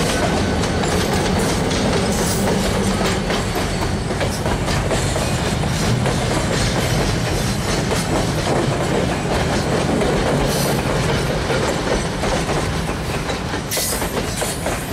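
A loaded freight train rolls past at close range: a diesel locomotive goes by with its engine running, then a long string of loaded grain hoppers follows with the steady clatter of wheels on rail.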